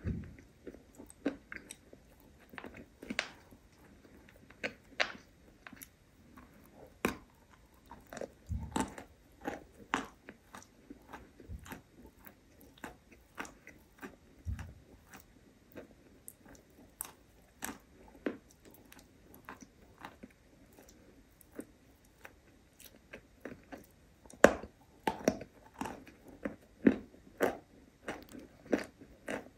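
Close-miked chewing of soft, sticky berry mochi: irregular wet mouth clicks and smacks, picked up by a lavalier microphone held at the lips, with louder smacks near the end.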